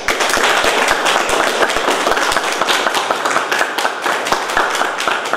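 Applause from a small group of people, clapping steadily with individual hand claps standing out.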